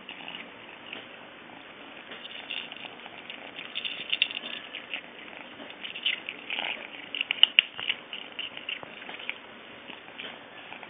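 Kitten eating dry cat kibble: an irregular run of small crisp crunches and clicks, loudest about seven and a half seconds in.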